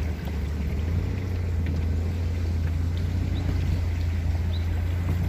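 Car driving along a flooded road: a steady low rumble of engine and tyres under a continuous hiss of water.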